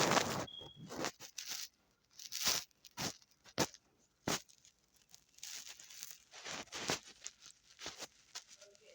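Irregular rustling and crinkling, a string of short noisy bursts of varying loudness.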